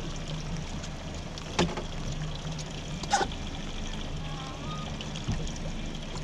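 Heavy rain falling steadily on a small open boat, with a low steady hum from the idling outboard beneath it. Two sharp knocks come about a second and a half apart.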